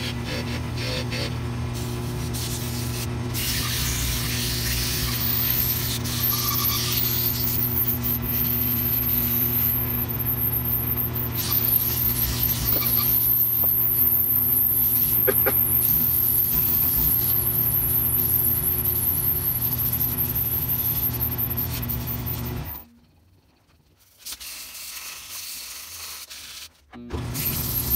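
Wood lathe running with a steady motor hum while a turning tool and then sandpaper rub against the spinning Red Ash wand blank, a hissing scrape. The sound drops away for about four seconds near the end, then returns.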